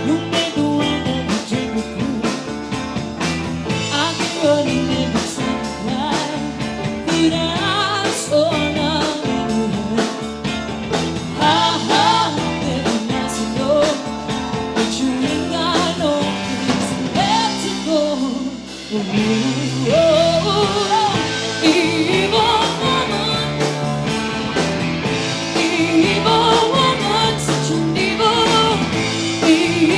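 A live rock band playing, with a singer's voice over the band.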